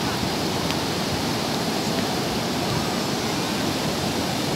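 Sea surf washing onto a beach, a steady continuous rush with no single wave standing out.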